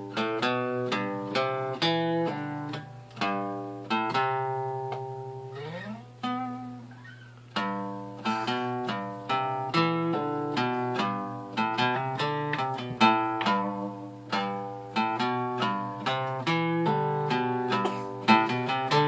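Acoustic guitar played by hand, a steady run of plucked and strummed chords that ring and fade between strokes. About six seconds in there is a short slide up on a low string and a few single ringing notes, then the chords resume.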